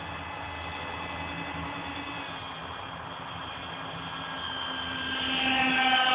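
Twin 70 mm electric ducted fans of a radio-controlled Su-37 jet whining steadily in flight, several high tones over a hiss, growing much louder about five seconds in as the jet passes close.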